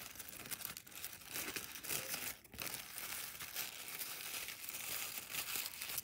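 Tissue paper crinkling and rustling as it is crumpled and pressed into a plastic bottle cap by hand, with a brief pause about two and a half seconds in.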